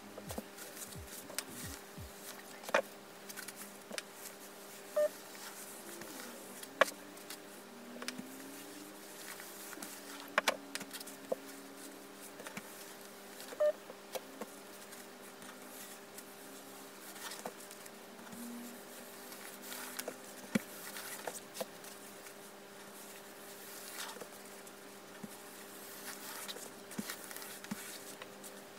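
Scattered small clicks and taps of a mini iron and fabric being handled on a padded pressing mat, over a steady low electrical hum.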